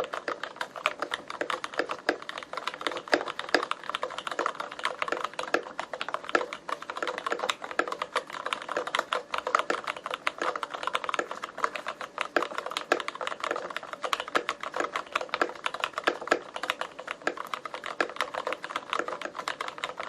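Continuous fast typing on a Varmilo VA87M Koi mechanical keyboard fitted with Cherry MX Red linear switches: a dense, even stream of keystrokes with no pauses.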